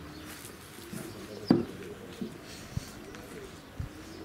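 Doves cooing repeatedly in low, arching coos. A single sharp knock about a second and a half in is louder than the cooing, with a couple of fainter knocks later.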